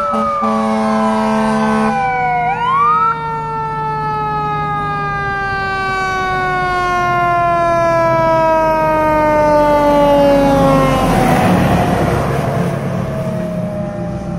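Fire ladder truck responding with siren and horn. A steady horn sounds for about the first two seconds, then the siren winds up briefly and falls slowly in pitch over several seconds as the truck comes closer, and a rush of engine and road noise follows as it passes near the end.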